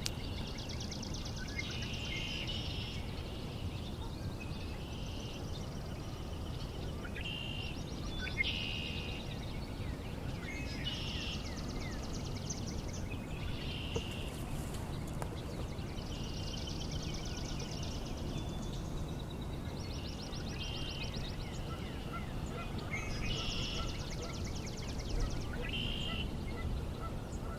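Songbirds singing: a rapid, high trilled phrase about two seconds long repeats every three to four seconds, over steady low outdoor background noise.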